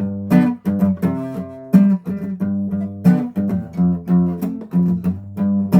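Guitar strummed in a repeated chord pattern, about two strums a second, each chord ringing on.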